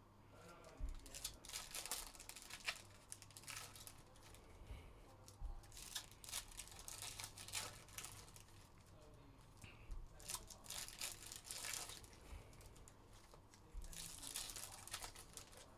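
Trading-card pack wrappers from 2021 Panini Phoenix football packs being torn open and crinkled by hand, in four bursts of rustling a few seconds apart.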